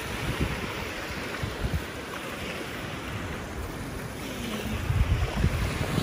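Wind buffeting the microphone in gusts that grow stronger over the last couple of seconds, over a steady wash of small waves breaking on a sandy lake shore.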